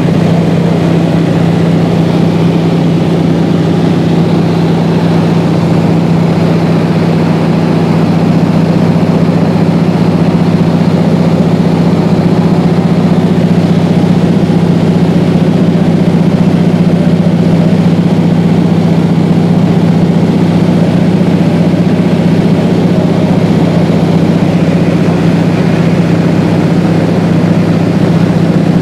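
Small aircraft's engine and propeller drone heard inside the cabin: loud and steady, holding one constant pitch.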